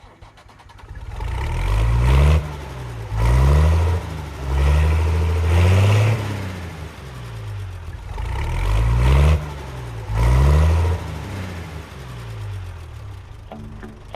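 An engine revved over and over, its pitch sweeping up with each surge and falling back between them, settling lower near the end.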